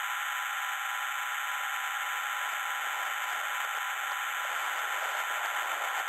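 Steady filtered white-noise hiss with a few high held tones, the build-up intro of an electronic dance track, starting to pulse faintly near the end.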